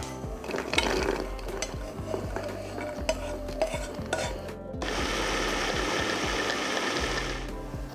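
Cooked lentils poured into a plastic chopper bowl, pattering and clicking against the plastic. About five seconds in, an electric hand-blender chopper runs for about two and a half seconds, chopping them with a steady hiss. Soft background music underneath.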